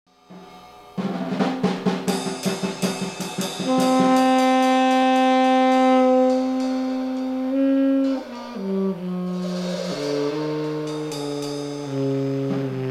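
Saxophone and drum kit playing together live: a flurry of drum and cymbal strokes starts about a second in, then the saxophone holds one long note before moving through a series of sustained notes that step lower, with the drums going on underneath.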